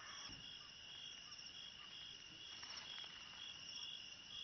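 Crickets chirping faintly: a steady high trill with a pulsing chirp repeating a little over twice a second.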